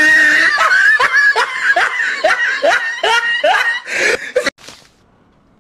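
A person laughing in a run of about ten short rising bursts, two or three a second, that stops about four and a half seconds in.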